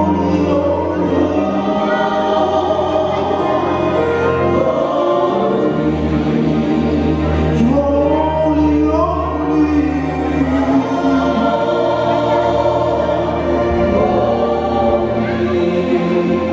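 Live gospel music: a group of singers in harmony with a band, the voices carried over held low bass notes that change every few seconds.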